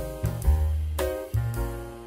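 Background music: keyboard chords over a heavy bass line, with new notes struck in a steady beat of about two a second.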